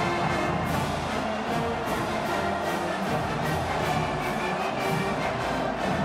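College marching band playing, brass carrying the tune over quick, regular percussion hits.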